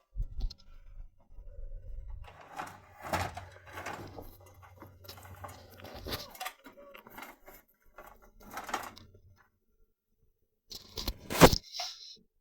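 Handling of a homemade wooden angle jig made of three sticks joined with two screws: scattered rustles, taps and knocks as it is set in place, with a sharp wooden knock about eleven seconds in.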